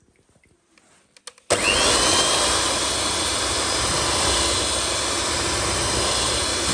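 Electric hand mixer switched on about a second and a half in, its motor whine rising briefly as it comes up to speed and then running steadily. Its beaters are whipping egg whites with sugar and lemon juice in a glass bowl.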